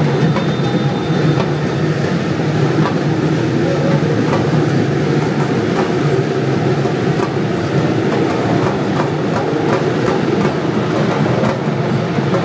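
Steady, loud vehicle rumble with faint scattered clicks.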